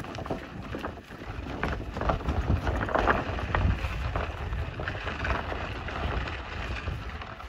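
Wind buffeting the microphone with a steady low rumble, over irregular crunching footsteps on a dry grassy dirt trail.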